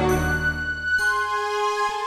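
Background music: sustained, ringing chime-like notes, with a new chord coming in about a second in.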